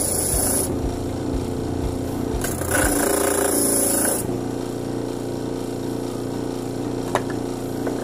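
Homemade disc sander driven by an old washing machine motor, sanding a block of wood held against the disc. The motor hums steadily underneath, and the gritty hiss of the sanding is loudest at the start and again from about two and a half to four seconds in, then eases off as the pressure lightens. A single sharp click comes near the end.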